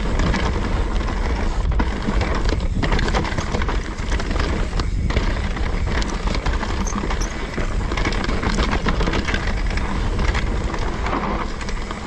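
Mountain bike running fast down a dry dirt trail: wind buffeting the handlebar-mounted camera's microphone, tyres rolling over dirt, and the bike rattling and knocking over the rough ground.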